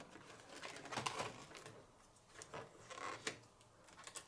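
Fabric and Scotch tape being peeled off an adhesive cutting mat: faint rustling with a few short scratchy pulls.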